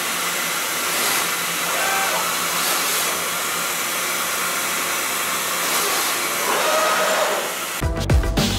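5-axis CNC machining center milling a mold core with oil-mist cutting fluid: a steady airy hiss, with a few faint short tones from the cutting. Electronic music with a beat cuts in near the end.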